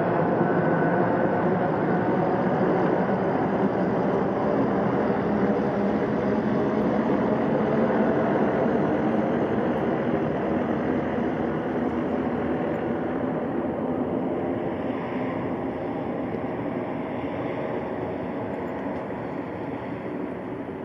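Jet noise from a Boeing 747-400 freighter's four turbofan engines at takeoff climb power: a steady rumbling noise that slowly fades as the aircraft climbs away.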